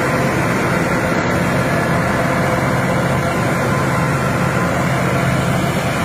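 Zoomlion mini rice combine harvester running steadily while cutting rice: a loud, even engine-and-machinery drone with no change in speed.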